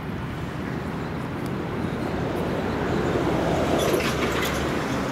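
Motorboat engine running steadily over water and wind noise, swelling louder about three to four seconds in.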